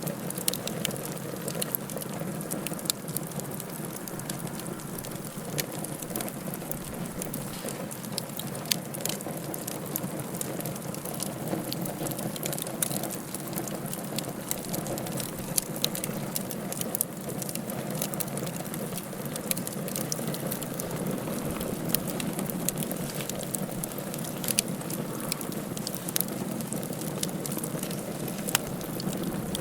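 Wood fire in a fireplace crackling: a steady low hiss with irregular sharp pops and snaps scattered throughout.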